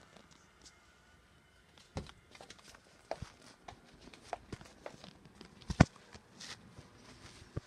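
Scattered soft taps and knocks from quiet footsteps and a hand-held phone being moved about, with one sharper knock a little before six seconds in.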